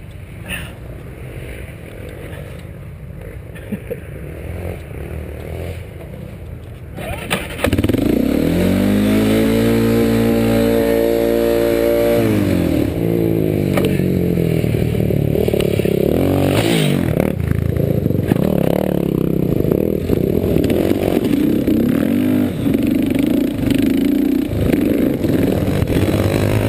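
Yamaha Warrior 350 quad's single-cylinder four-stroke engine running at low throttle at first, then opened up about seven seconds in: a loud rise in pitch, held for a few seconds, then falling away as it comes off the throttle. It then keeps running loudly under varying throttle.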